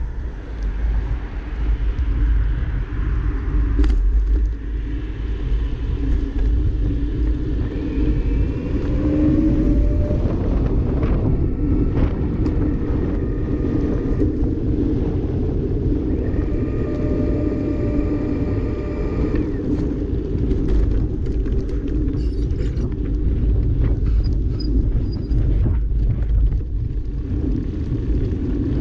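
Steady low rumble of wind and rolling road noise on a bicycle-mounted camera's microphone while riding, with brief faint tones passing over it about a third of the way in and again around the middle.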